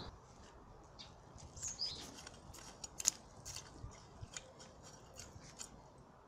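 A flat-cutter hoe (ploskorez) blade scraping and cutting through loose garden soil, faint, with scattered small clicks. A bird chirps a few times about two seconds in.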